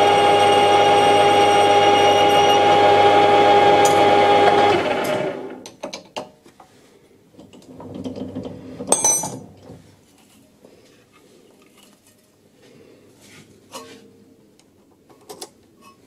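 Metal lathe running with a steady whine while a tool cuts the centre hole of an aluminium plate held in a four-jaw chuck. About five seconds in the whine fades out as the lathe stops, followed by a few light clicks and a knock about nine seconds in.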